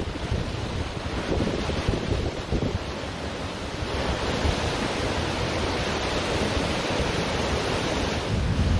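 Ocean surf washing on a beach, with a wave's hiss building about halfway through and easing off near the end, and wind rumbling on the microphone.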